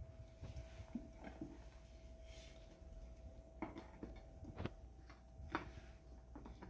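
Faint handling sounds as a plastic plate and silicone bundt mold are turned over and set down on a stone countertop: a few light, sharp clicks and taps in the second half, over a faint steady hum.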